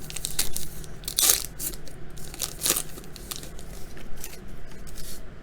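Trading cards handled and shuffled by hand, with irregular rustling and crinkling; the sharpest crinkles come about a second in, near the middle and near the end.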